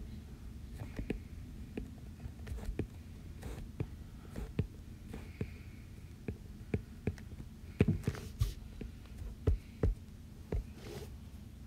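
Light, irregular taps on an iPad's glass screen, about one or two a second, the loudest cluster about eight seconds in, over a steady low hum.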